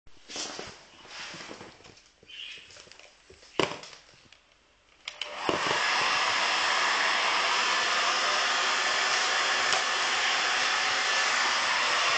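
Handheld hair dryer switched on about five and a half seconds in and then running steadily with a loud, even blowing noise. Before it starts there is faint handling and a few sharp clicks.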